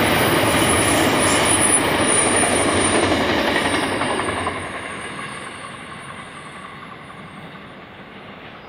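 Container wagons of a Pacific National freight train rolling past on a curve, steel wheels running with a thin high wheel squeal. The sound fades away from about four seconds in as the tail of the train passes.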